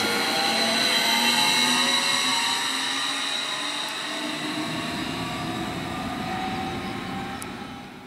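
Stadler FLIRT electric multiple units in double traction running through the station, their traction-motor whine climbing steadily in pitch as they gather speed, over the rumble of wheels on the rails. The sound fades away toward the end as the train draws off.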